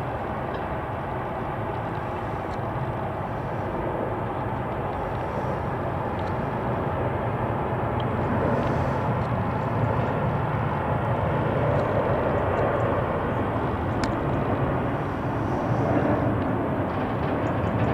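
Boeing 777-300ER airliner's twin GE90 turbofan engines, a steady jet rumble growing slowly louder as the plane flies in on approach.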